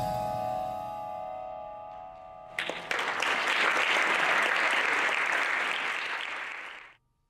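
The final chord of a percussion ensemble rings on and fades, then audience applause breaks out about two and a half seconds in and cuts off suddenly near the end.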